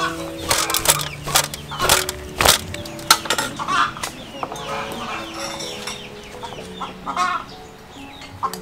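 Chickens clucking, with sharp clicks and scrapes of utensils on a metal tray while passion fruit pulp is scooped out.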